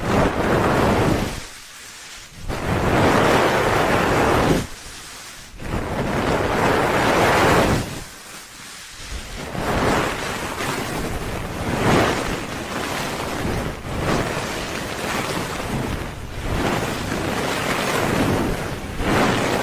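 Binaural ASMR microphone's ears being rubbed in the 'helicopter' style, rushing whooshes that swell and fade about every two seconds. The swells run together in the second half.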